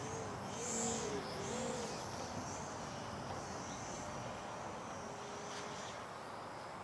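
Faint, wavering high whine of a Slow Stick X model plane's electric motor flying high overhead, over a steady outdoor hiss. A bird gives three short low cooing notes in the first two seconds.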